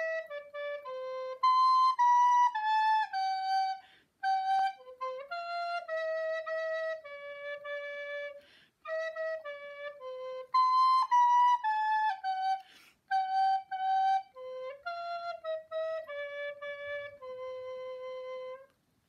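Wooden recorder playing a simple melody of clear single notes in short phrases, the tune going through twice.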